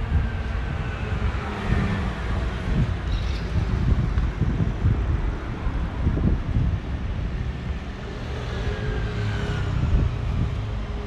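Steady low vehicle rumble with wind buffeting the microphone and faint voices in the background.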